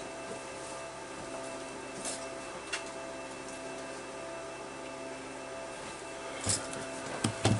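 Steady electrical hum, with a few faint clicks and a couple of louder knocks near the end.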